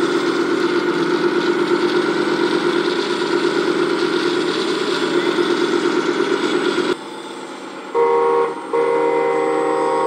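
Radio-controlled Volvo A40G articulated dump truck driving, a steady fluttering engine drone that stops abruptly about seven seconds in. Near the end come two horn toots, a short one and then a longer one.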